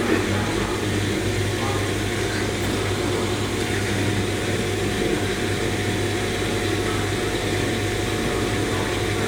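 LG washing machine running steadily on its rinse-and-spin cycle: a constant motor hum with a few steady tones, without change.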